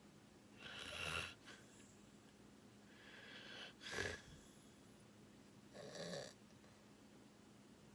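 A sleeping person snoring and breathing heavily: a snore about a second in, a noisy breath that ends in a short sharp snort near the middle, and another breath near the end. A faint steady hum runs underneath.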